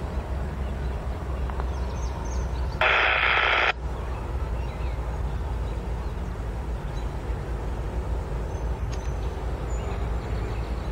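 Norfolk Southern diesel locomotive running with a steady low rumble as it pulls a double-stack container train slowly through the yard. About three seconds in, a sudden loud noisy burst lasts about a second and cuts off sharply.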